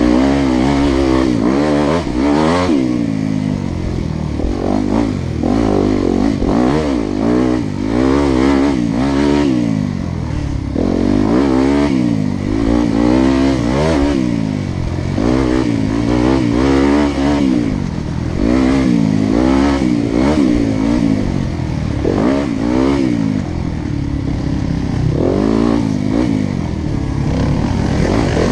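Several engines revving, overlapping, each rising in pitch and falling back over and over.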